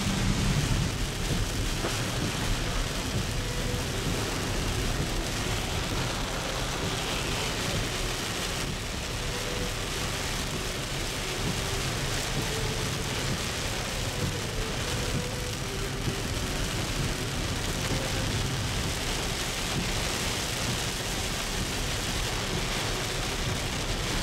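Heavy rain pouring steadily on a car, heard from inside the vehicle, with a low rumble of thunder in the first second or so.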